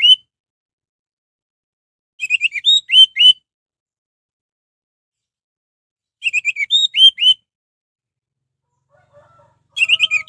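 Orange-headed thrush singing: short phrases of quick, clear whistled notes ending in slurred rising whistles, each phrase about a second long and repeated about every four seconds.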